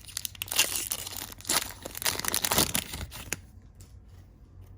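A trading card pack wrapper being torn open and crinkled: a run of crackling rips through the first three and a half seconds, then only faint handling.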